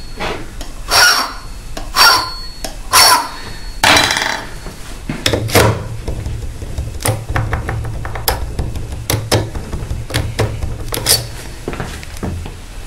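Key blank being worked in an Asec euro profile cylinder lock to make impression marks on it: four sharp metallic knocks about a second apart, each with a brief high ring, then lighter clicking and rattling as the key is wiggled in the cylinder.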